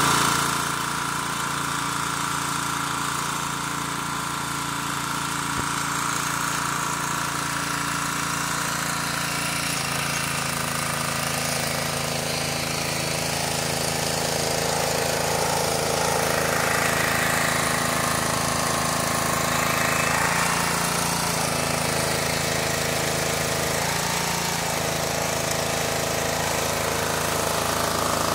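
Electric welding arc crackling and sputtering steadily as a joint on a round steel pipe fence is welded, over the steady drone of an engine-driven welder.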